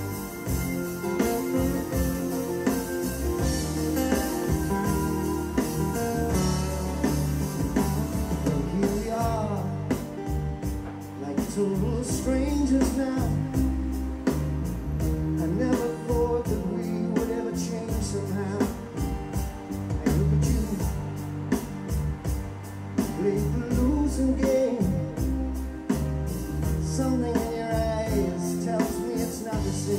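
A rock-style song with singing, guitar and a heavy bass line, played as a listening test through the car's upgraded audio system with its trunk subwoofer.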